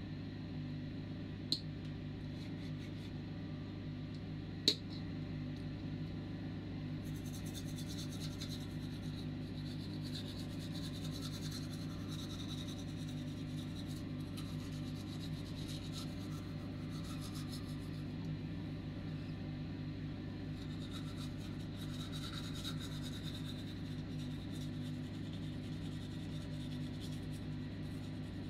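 Toothbrush scrubbing teeth in quick, rasping back-and-forth strokes, starting several seconds in, over a steady low hum. Two sharp clicks come before the brushing starts.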